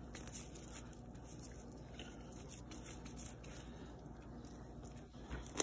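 Faint soft squishing and light scattered taps of raw ground meat being scooped and handled for meatballs.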